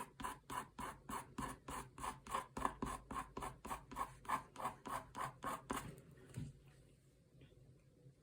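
Pen scratching quick short strokes across watercolour paper, about four a second, stopping about six seconds in.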